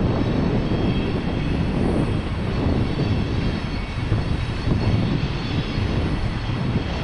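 Freight train passing with a steady, loud rumble of cars rolling over the rails.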